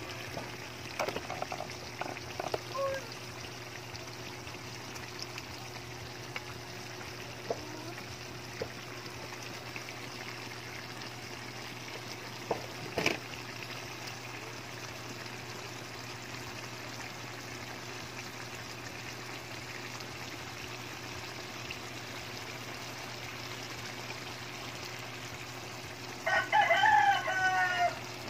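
A rooster crows loudly for about two seconds near the end, over the steady low bubbling of coconut-milk sauce simmering in a wok. A few light knocks sound in the first few seconds and once about halfway.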